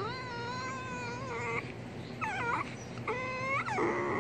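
A puppy play-fighting, giving a series of long, high-pitched whining yowls, some held steady and some wavering up and down in pitch.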